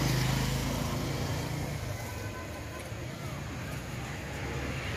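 Low, steady engine rumble of a motor vehicle, loudest at the start and fading over the first two seconds, over a haze of outdoor background noise.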